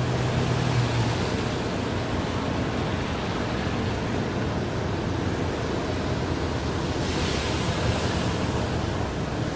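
A harbour tugboat's diesel engine running under way, a steady low hum under an even hiss of wind and water.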